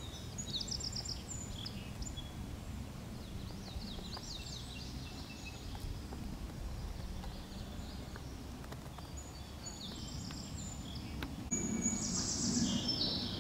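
Small songbirds chirping and singing, a run of quick high chirps and trills over a steady low outdoor rumble; a louder, rapid trill comes near the end.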